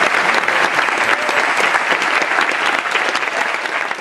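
Audience applauding: dense, steady clapping that tapers off slightly near the end.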